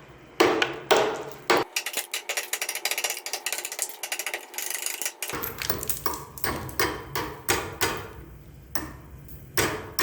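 Hammer striking a block of ice that encases a padlock, chipping the ice away. Three hard blows come first, then a long run of quick, light taps, and one more hard blow near the end.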